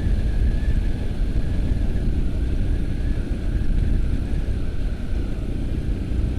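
BMW R nineT's 1170 cc boxer twin running steadily on the move, heard under a heavy, even rumble of wind and road noise. A faint steady whine sits above it throughout.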